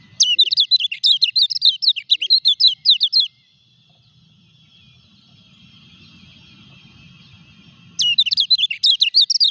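A caged kecial kuning, a small white-eye, singing a rapid high chattering song of quick rising and falling notes, about six a second. It sings for about three seconds, stops, and starts again near the end. The bird is in moult yet still sings.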